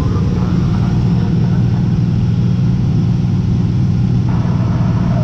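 Cessna T210 Turbo Centurion's turbocharged six-cylinder engine and propeller droning steadily in flight, heard from inside the cockpit.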